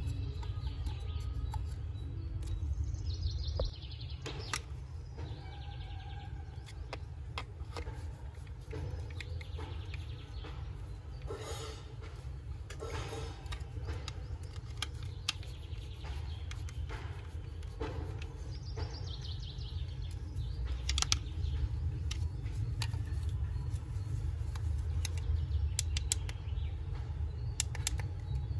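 Scattered clicks and taps of a plastic mini juicer blender's cup and base being handled and unscrewed with a screwdriver, over a steady low rumble with bird chirps now and then.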